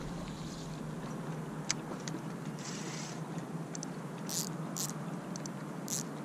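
Faint steady hiss of wind and lapping water, with a handful of short, light clicks scattered through the second half.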